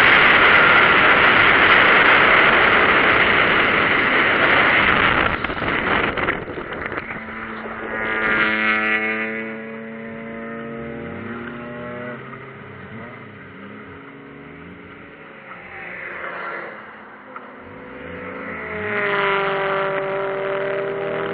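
In-car sound of a Toyota Supra running off the track into the grass: a loud, even rush of tyre and ground noise for about the first five seconds as it slows from speed. Then its engine runs at low revs with short rises and falls in pitch, the revs climbing again near the end as it pulls back toward the track.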